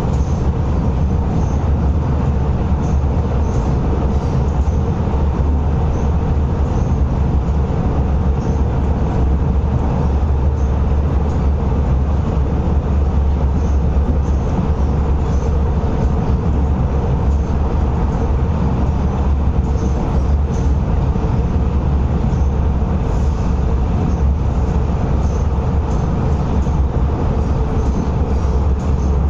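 Inside a Metro-Cammell MLR electric multiple unit on Hong Kong's East Rail Line running at speed: a steady, loud low rumble of wheels and running gear with a constant hum over it.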